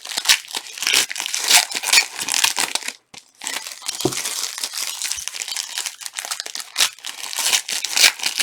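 Plastic trading-card pack wrappers crinkling and tearing as packs are ripped open and handled, a dense run of irregular crackles with a brief pause about three seconds in.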